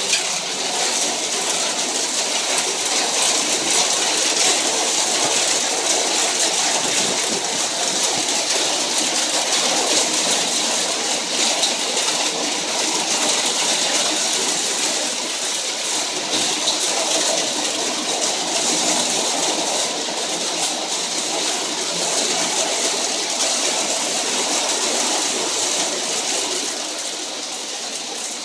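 Hailstones and heavy rain pelting down on an asphalt road, a dense, steady clatter of countless small impacts, easing slightly near the end.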